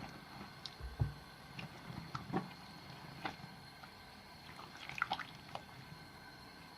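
Wet soap slivers being lathered, giving scattered small wet clicks and squishes, with a soft low thump about a second in.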